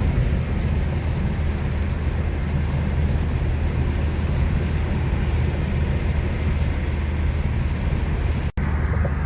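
Car driving on a road: a steady low rumble of engine and tyre noise, broken by a sudden short dropout near the end.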